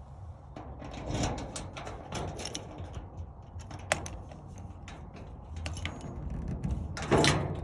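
A series of light clicks and knocks, like objects being handled and set down in a small room, with one sharp click about four seconds in and a louder clatter near the end.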